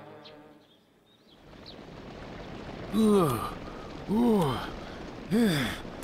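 Cartoon bug character grunting with effort as it pushes a heavy ball, three strained grunts about a second apart, each rising and falling in pitch, over a faint steady hiss.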